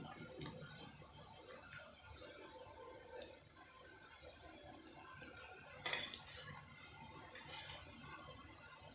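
Cutlery clinking and scraping against a plate of noodles while eating, with two louder scrapes in the second half.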